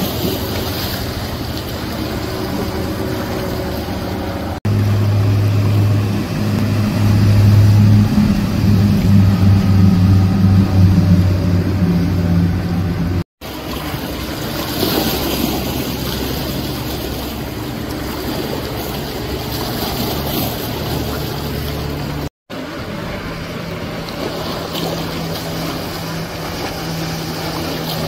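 Outboard-powered boats running at speed past close by, a steady motor drone over the rush of hull spray. The audio is several short clips joined together, with brief dropouts at two of the cuts, and the engine is loudest in the second clip.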